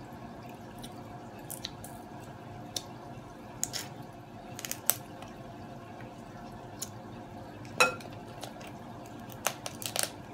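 Eating boiled blue crab: scattered sharp clicks and cracks of crab shell being picked and pulled apart, along with chewing, the loudest crack about eight seconds in, over a steady low hum.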